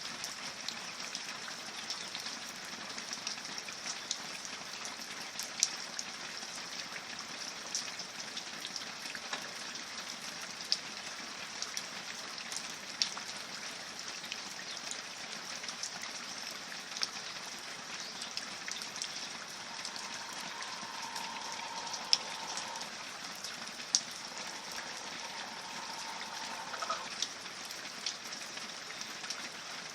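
Steady rain, a continuous hiss with single drops ticking sharply at irregular moments.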